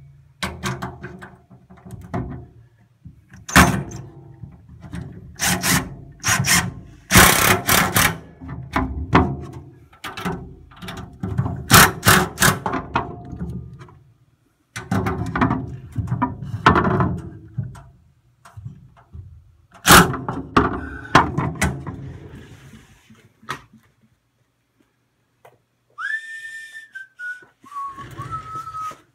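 Cordless DeWalt drill driving screws through a steel cabinet's back into wooden blocks: bursts of drilling with sharp metallic knocks, stopping about three quarters of the way through. Near the end comes a short high whine that drops in pitch.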